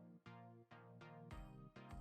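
Faint electronic background music: a steady run of short synth notes, with a low beat coming in about two-thirds of the way through.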